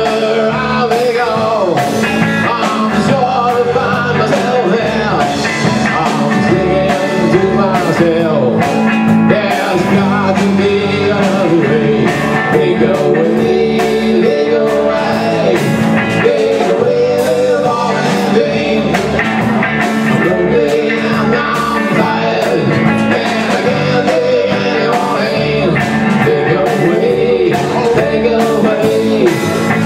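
Live rock band playing electric guitar, bass guitar and drums, with a steady beat and a bending melodic line over it.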